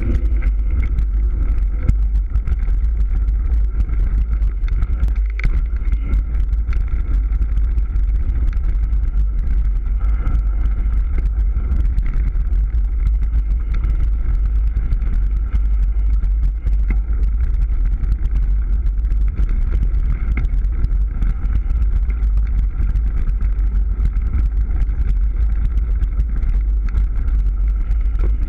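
Mountain bike descending a dirt and gravel trail at speed, heard from a bike-mounted camera: a steady heavy rumble of wind and tyre noise, with constant small rattles and clicks from the 29er's tyres and frame over the rough ground.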